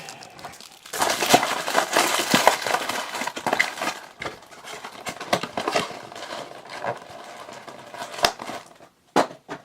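Trading card packs and cards being handled: crackly wrapper crinkling and card rustling, busiest in the first few seconds, then scattered light clicks and taps, with a sharp tap near the end.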